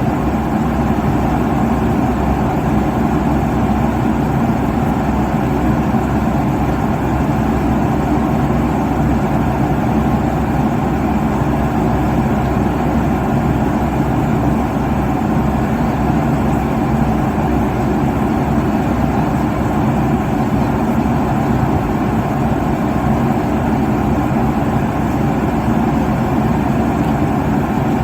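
Airliner cabin noise at cruise altitude: a constant rush of engine and airflow noise, heaviest in the low range, with a faint steady hum under it.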